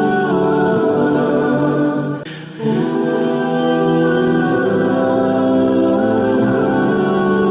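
Slow background music of wordless, choir-like voices holding long chords, with a brief drop in level about two seconds in.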